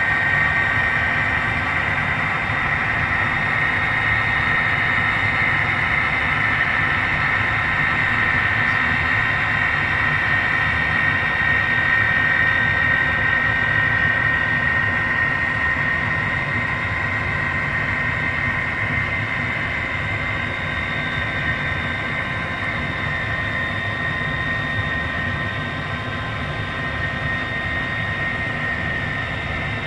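Model freight train rolling along its track: a steady running whir with a fixed high whine over a low rumble, slowly getting quieter as the train moves on.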